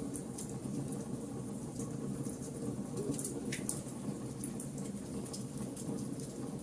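Wood fire burning in a fireplace: a steady low rumble of the flames with scattered sharp crackles and pops, one longer pop about three and a half seconds in.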